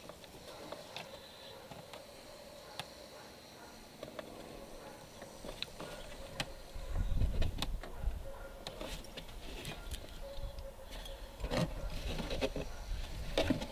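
Scattered light clicks and knocks of hands fitting parts inside an RC boat's hull, with a short run of low, dull bumps about seven seconds in.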